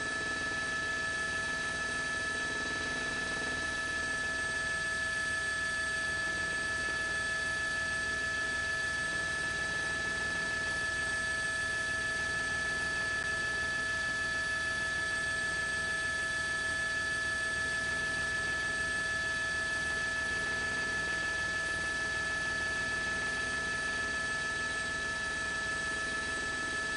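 A steady whine of several constant high tones over an even hiss, unchanging in pitch and level.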